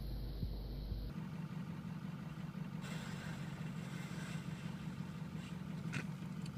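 A steady low mechanical hum, with a short sharp click about six seconds in.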